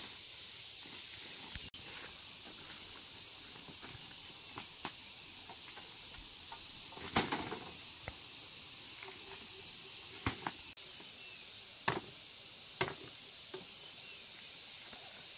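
Steady high-pitched insect buzzing, with a few sharp knocks of sugar cane stalks clacking together as they are handled and dropped onto a pile. The loudest knock comes about seven seconds in.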